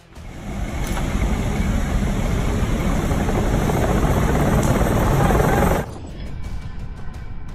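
Loud steady roar of engines and rushing air inside a military transport aircraft's cargo hold with the rear ramp open during an airdrop, building over the first second and cutting off suddenly near the end. Background music follows.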